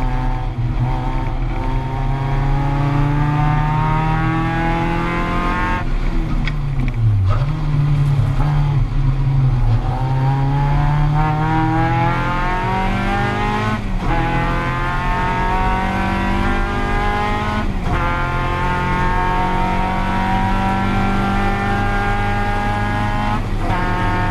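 Caterham Seven's 2.3-litre Ford Duratec four-cylinder racing engine, heard from the driver's seat. The engine note falls as the car slows for a corner about six seconds in, then climbs hard under full throttle, with two quick upshifts as the car accelerates down the straight.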